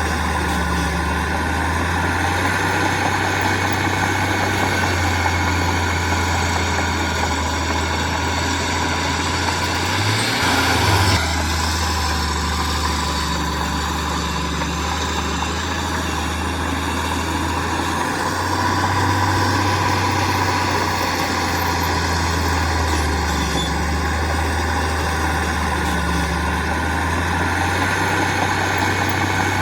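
Heavy diesel engine of earthmoving or haul machinery running steadily, with a louder rush of noise lasting about a second around ten seconds in.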